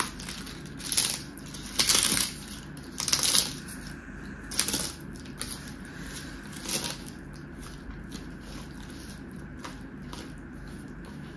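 Crisp papad (papadum) cracking and crunching as it is crumbled by hand, in about five short bursts over the first five seconds. Fainter crackles and rustles follow as the broken pieces are pressed and mixed into rice with the fingers.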